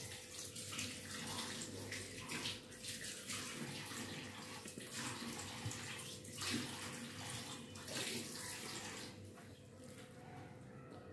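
Fingers mixing and squeezing rice with curry gravy on a plate: a run of wet, rustling squishes that eases off near the end, over a faint steady hum.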